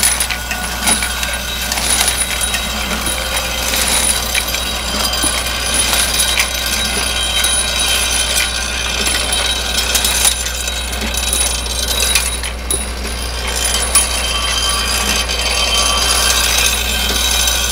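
Bolt feeder with a reciprocating ram elevator and a straight-line vibratory orientor running: a steady low hum under continual metallic clinking and rattling of steel bolts.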